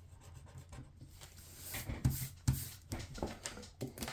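Handling sounds of paper cash and binder pages: quiet at first, then a run of light rustles and soft knocks through the second half.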